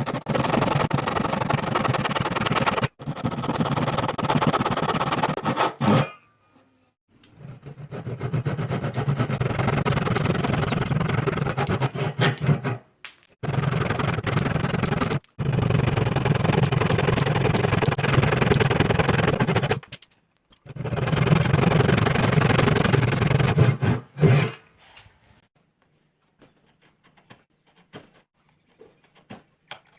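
A power woodworking tool cutting wood in six runs of a few seconds each, stopping and starting abruptly between them, followed by a few faint light knocks near the end.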